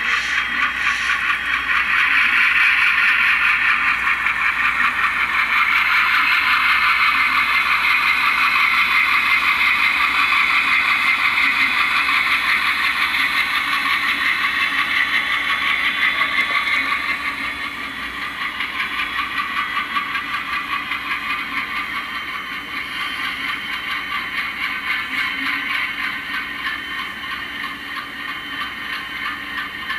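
LokSound sound decoder in an HO-scale Atlas C424 model locomotive playing the running sound of an ALCO 251 diesel engine through the model's small speaker, a steady rattly engine chug. It gets quieter a little past halfway.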